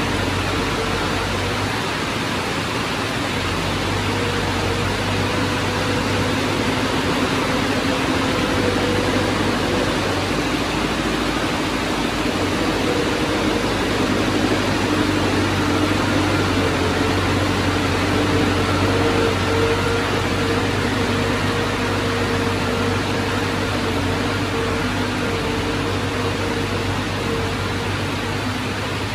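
Diesel engine of heavy earthmoving equipment running steadily, with a constant drone and faint wavering tones over a broad noise.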